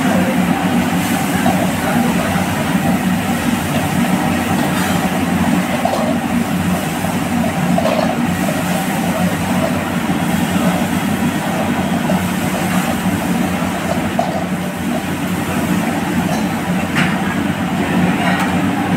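Vegetables stir-frying in a steel wok over a high gas flame: a steady rushing burner noise with sizzling, and the steel ladle now and then scraping and clinking against the wok.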